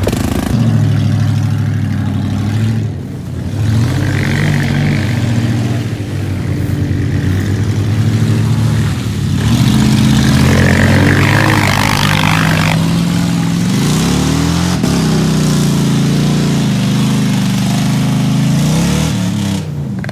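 Pickup truck engine revving in the mud, rising and easing off over and over, its pitch climbing and dropping.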